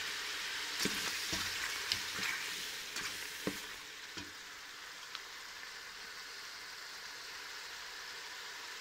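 Cuttlefish pieces sizzling as they sauté in olive oil in a stainless steel pot, with a wooden spoon stirring and knocking against the pot several times in the first few seconds. The sizzle goes on a little quieter after about four seconds.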